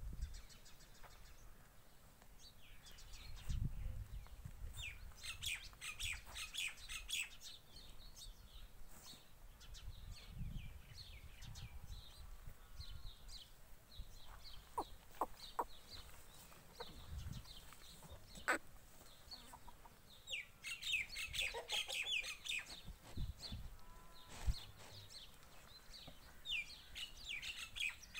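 Birds chirping around a farmyard, in several bursts of rapid, high chatter, with occasional low rumbles in between.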